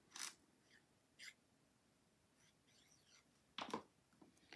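Near silence with faint handling sounds of cardstock and a plastic fine-tip glue bottle: a few short, soft rustles. About three and a half seconds in comes a light knock as the bottle is set down on the tabletop.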